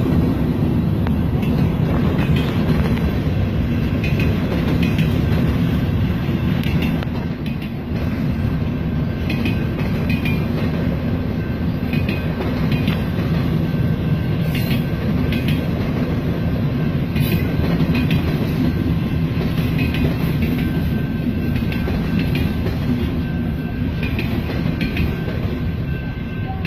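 CN mixed freight train rolling slowly past: a steady low rumble of wheels on rail, with scattered clicks as the wheels cross the rail joints.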